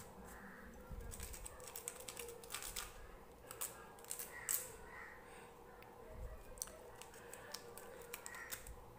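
Sandpaper rubbed by hand on a small metal part of a gas stove spark lighter, scouring off carbon deposits. It makes faint, irregular scratches and clicks.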